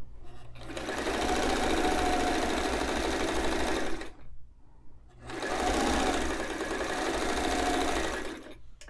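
White 173 sewing machine stitching a seam through fabric strips in two runs of about three and a half seconds each, with a short stop between them.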